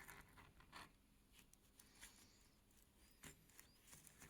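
Faint small clicks and scrapes of tools working tiny parts out of a mechanical watch movement, with a slightly sharper click about three seconds in.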